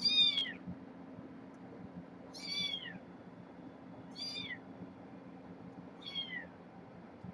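A young kitten mewing four times, each a short, high-pitched call that falls in pitch, about two seconds apart.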